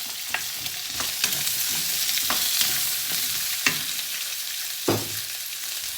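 Vegan chicken, bell peppers and freshly added onion sizzling steadily in a hot pan as they are stir-fried, with a spatula clinking and scraping against the pan about half a dozen times.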